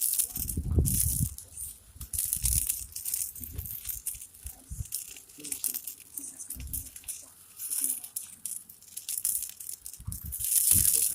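Crackling of a large fire of burning matches and cardboard tubes, an irregular dry crackle throughout, with a few low thumps, the strongest about a second in and near the end.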